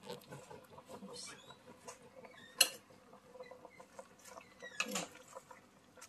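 A metal spoon pressing spinach and pechay leaves down into a pot of simmering soup: faint scattered ticks and small squeaks, with one sharp clink of the spoon against the pot about two and a half seconds in and a lighter knock near five seconds.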